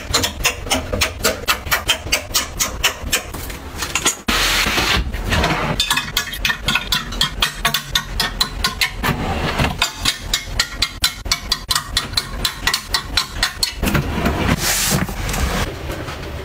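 Rapid, even clicking and clacking of clothes hangers knocking against closet rails and hooks as garments are hung up, about five clicks a second, in runs of several seconds with short breaks.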